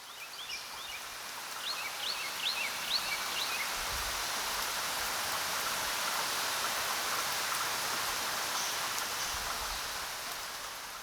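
Nature ambience: a steady hiss of water, like rain or a running stream, fading in over the first couple of seconds. A bird gives a quick run of short rising chirps during the first few seconds.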